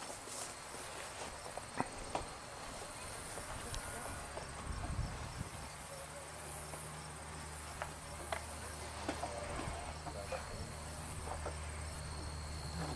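Insects trilling steadily at a high pitch, with scattered faint clicks. A low hum comes in about five seconds in.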